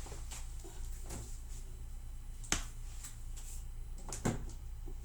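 A few sharp clicks of a flat iron's plates snapping shut on the hair, the two clearest about two and a half and four seconds in, over a faint steady low hum.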